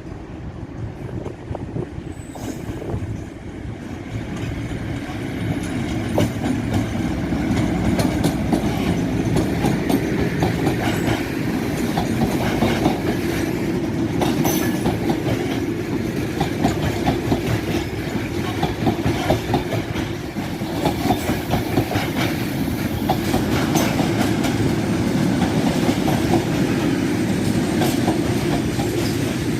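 A train running along the rails, with its wheels clicking over the rail joints. It builds up over the first several seconds as it draws near, then runs on loud and steady.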